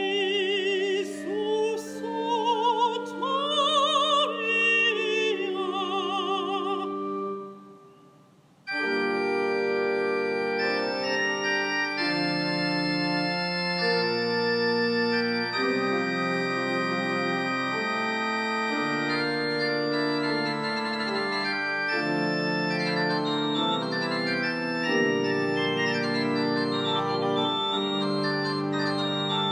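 Soprano singing a phrase with wide vibrato over held organ chords, ending about seven seconds in. After a short pause the organ plays an interlude of slowly changing chords.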